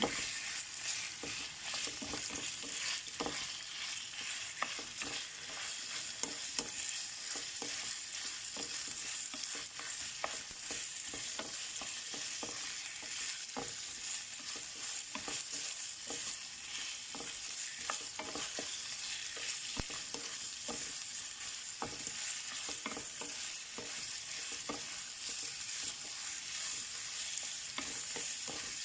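Chicken pieces sizzling as they fry in hot oil in a pan, with frequent clicks and scrapes of a utensil stirring them against the pan.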